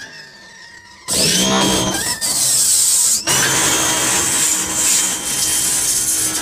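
Denzel R180 electric pressure washer switched on about a second in: its motor runs with a loud hiss of spray, dips briefly once and picks up again.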